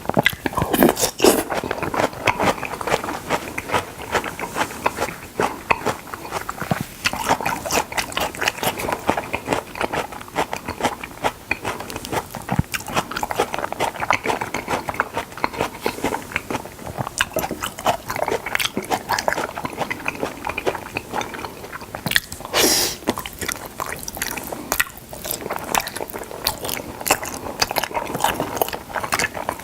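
Close-miked eating of salmon: continuous wet chewing and biting with many small clicks and smacks, and one louder, sharper bite about three quarters of the way through.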